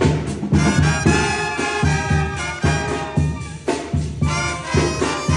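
Brass band playing live: trumpets and other horns carrying the tune over a steady bass drum beat.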